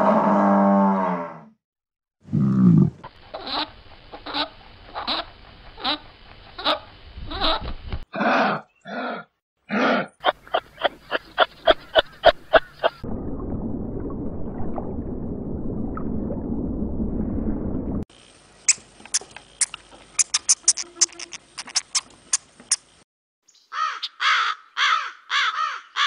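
Several different animal sound clips in turn. First a drawn-out call that ends about a second in, then series of evenly spaced clicking and chirping calls. After that comes a steady rushing water noise over an aquarium fish scene, then fast high-pitched clicking, and near the end a crow cawing repeatedly.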